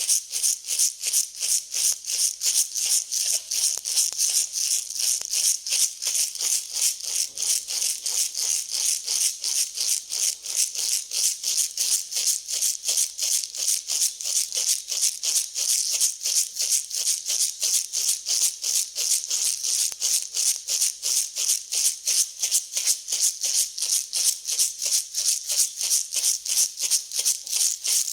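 Dry grain rattling and hissing in a steady back-and-forth rhythm, about four strokes a second, as it is mixed or shaken.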